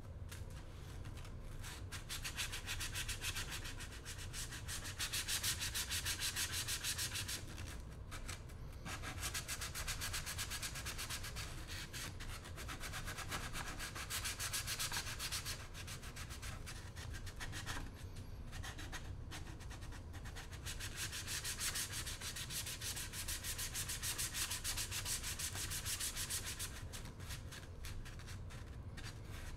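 Sandpaper rubbed by hand along the cut edge of a PVC trim board in fast back-and-forth strokes, smoothing the edge, with a few brief pauses.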